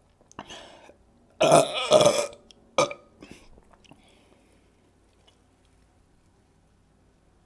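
A woman's loud burp, lasting just under a second, about a second and a half in, after drinks of sparkling water; a short click follows right after.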